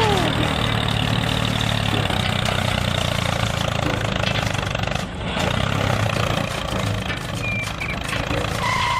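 Tractor engine running steadily with a low, even drone, dipping briefly about five seconds in.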